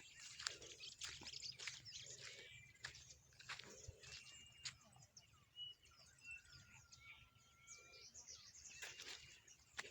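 Faint birds chirping and calling, with short whistled notes and one longer held whistle a little past halfway, over soft scattered rustles and clicks.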